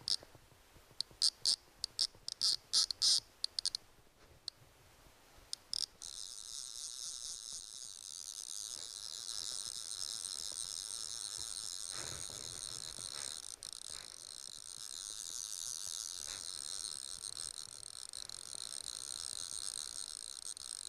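Fly reel's click-pawl ratchet buzzing while a salmon is being played on a fly rod. There are short bursts of rapid clicking in the first few seconds, then a continuous high-pitched buzz that starts suddenly about six seconds in and holds steady.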